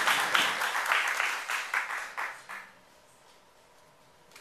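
Audience applauding, the clapping thinning out and dying away about two and a half seconds in.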